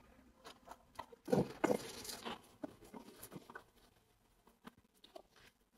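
Quiet, scattered small taps and scrapes of a spatula against a nonstick frying pan as a pancake is turned, with a louder cluster of them about a second and a half in.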